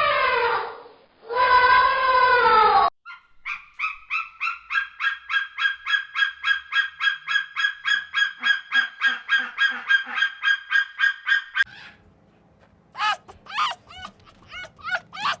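Goose honking in a fast, even series of about five honks a second for some eight seconds. Before it come two long pitched calls that fall at the end, and after it a few short rising chirps.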